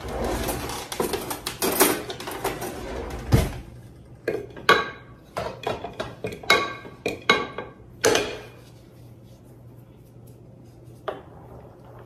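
Kitchen clatter of glass jars and cookware being handled: a rustling scrape for about three seconds, then a run of sharp clinks and knocks, some ringing, then quieter with a single clink near the end.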